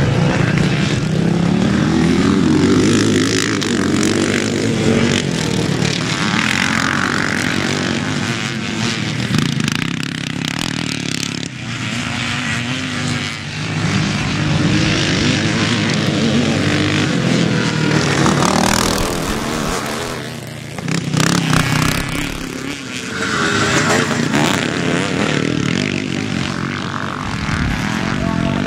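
Classic motocross bikes racing, their engines revving hard and easing off in turn, with more than one engine heard at once.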